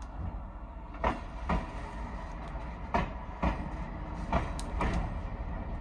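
Train wheels clacking over rail joints, heard from inside a slowly rolling railroad car: three pairs of sharp clicks about a second and a half apart, over a steady low rumble.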